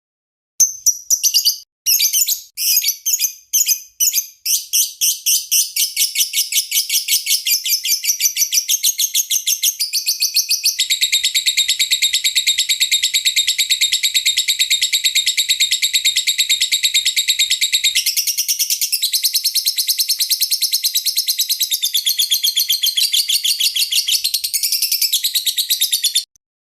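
Lovebird chattering: a few separate bursts of shrill chirps, then a long, fast, unbroken trill of rapid chirps that cuts off suddenly near the end.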